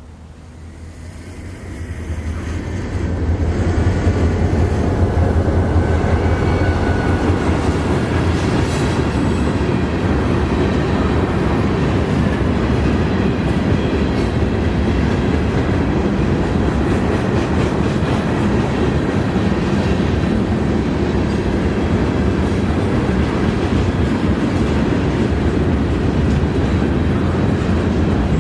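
A freight train passing: the locomotive's diesel drone swells over the first three or four seconds as it arrives, then the cars keep rolling by steadily with the clatter of wheels on rail.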